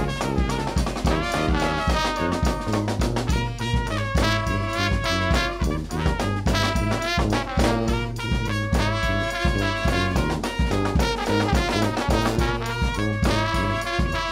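New Orleans brass band playing live: a sousaphone bass line under a steady bass drum and snare beat, with trumpet, trombone, saxophone and flute on the melody.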